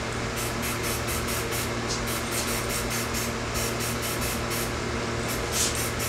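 Aerosol spray-paint can with a trigger handle, hissing in a rapid string of short spurts, several a second, with a brief pause near the end: spot-spraying in short bursts to keep overspray down.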